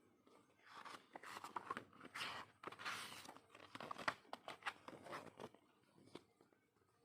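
Packaging being handled: irregular crinkling and rustling with a few sharp taps and clicks, easing off near the end.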